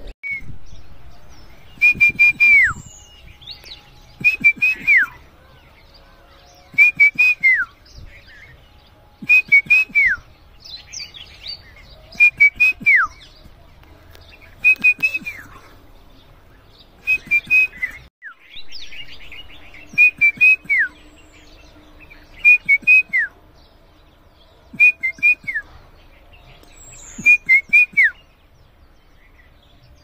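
A bird singing the same short phrase about every two and a half seconds: a few quick high notes, then a whistle sliding down.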